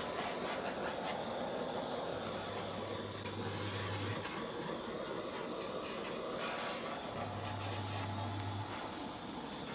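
Handheld gas blowtorch burning with a steady hissing rush as its flame singes the hair off a piglet's skin, starting with a sharp click.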